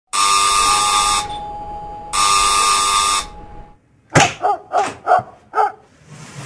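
Electric doorbell buzzer pressed twice, two steady buzzes of about a second each. Then, about four seconds in, five quick knocks on a wooden front door.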